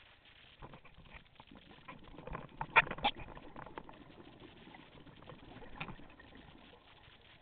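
Scuba diver's exhaled bubbles from the regulator, picked up by a helmet-mounted GoPro in its underwater housing: a burst of gurgling with sharp clicks about two to three seconds in and a smaller burst near six seconds.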